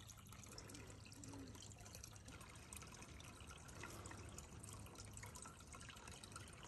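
Faint trickle and dripping of a slow-moving brook, low and steady.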